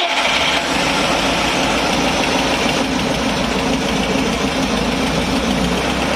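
An engine running steadily at a constant speed, a loud even rumble with no revving.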